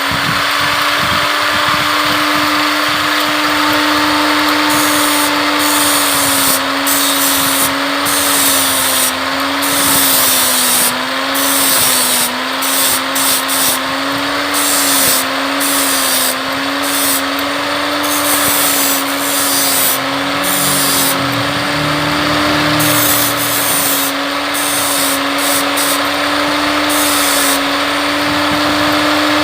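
Angle grinder with a 60-grit flap disc running continuously, grinding away the rim of a small loudspeaker. The motor tone holds steady, its pitch wavering slightly, under a harsh rasping grind that comes and goes in short bursts.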